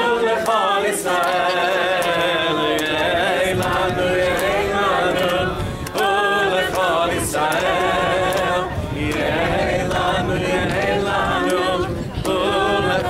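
A group of people singing a song together without instruments, with scattered hand claps.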